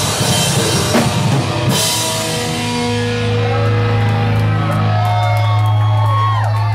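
Live heavy metal band: drum kit and distorted electric guitars playing hard, then about two seconds in the drumming stops and a low chord is held and left ringing, like the end of a song.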